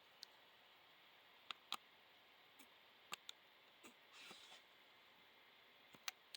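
Faint, scattered small clicks and taps from a hand-held metal disconnect tool being handled and worked at its pivot, with a soft brief rustle about four seconds in.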